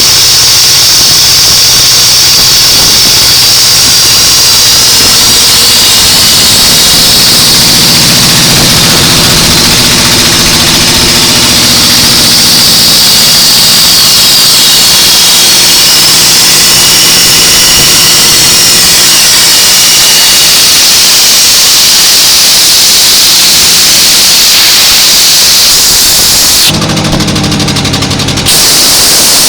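Air compressor running: a loud, steady hiss with a low hum beneath. Near the end the hiss drops away for about two seconds, leaving the motor's hum clearer.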